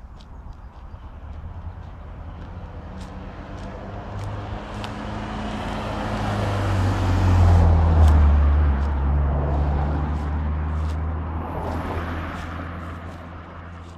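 A vehicle passing by: a low engine sound swells over several seconds, peaks about eight seconds in with a drop in pitch as it goes past, then fades away.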